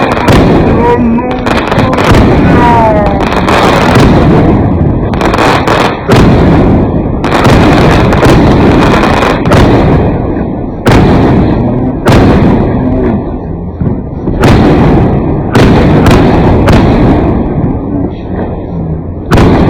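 Fireworks going off: loud bangs every second or two over a continuous rumble of further reports and crackle.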